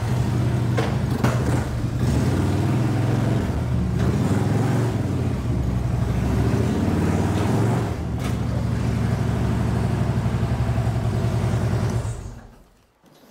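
Harley-Davidson touring motorcycle's V-twin engine running at low speed as the bike is ridden up onto a motorcycle lift, with a couple of clicks about a second in. The engine is shut off about a second before the end.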